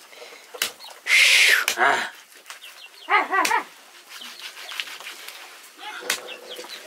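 A heavy curved knife chopping chicken pieces on a wooden chopping block, a few sharp chops. There is a loud hissing burst of about half a second about a second in, and a short animal call around three seconds in.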